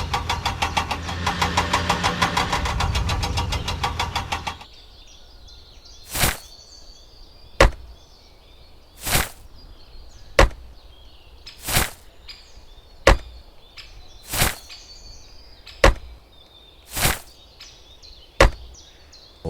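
A small engine runs with a rapid, even knocking beat and cuts off abruptly about four and a half seconds in. After that comes a repeating pattern of a short swishing stroke followed by a sharp knock, each about every two and a half seconds, with faint chirping behind.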